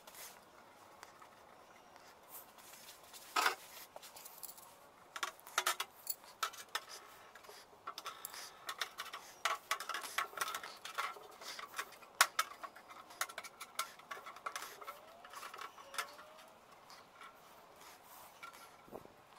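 Steel rebar rods clinking against each other and the stainless steel sink as they are handled and laid in place: a run of irregular metallic taps and clicks with a short ring, thickest in the middle and thinning out near the end.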